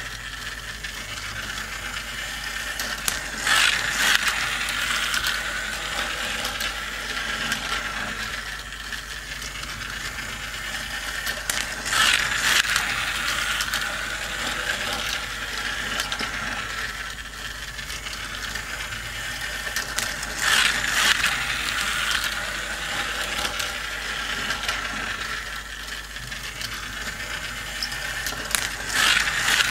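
Battery-powered toy car racing track running: small plastic toy cars travel around the looping track with a steady whirring, ratcheting clatter of plastic gears and wheels, rising to a louder rattle four times, about every eight seconds.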